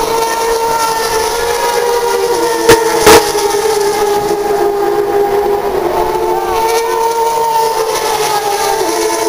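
Turismo Carretera race cars' engines running at high revs as they pass on the circuit, a steady high engine note that sways slightly in pitch. Two sharp knocks about three seconds in.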